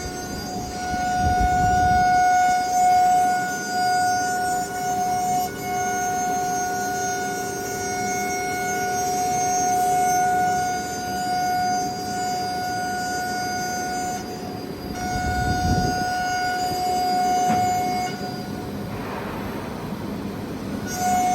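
Spindle of a single-head automatic tool-change CNC router running with a steady high-pitched whine while it cuts, with low rumbles as the tool works the board. The whine drops out briefly about 14 seconds in, and a rising whine comes near the end.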